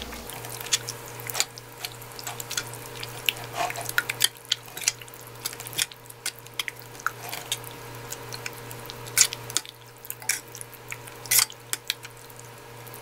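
Metal spoon clinking and scraping against a glass mixing bowl while chicken pieces are tossed in a thick, wet chili-paste marinade, with squelching of the sauce. The clinks come irregularly, several a second at the busiest moments.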